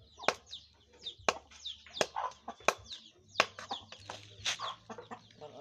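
Sharp clicks and knocks about once every 0.7 seconds as a knife scrapes and cuts a tilapia on a stone slab, with chickens clucking close by.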